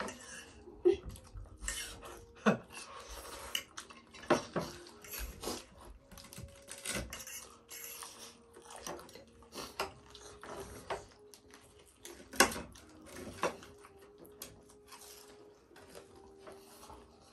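Forks clinking and scraping against ceramic plates and bowls as people eat, in scattered, irregular clicks and knocks, over a faint steady hum.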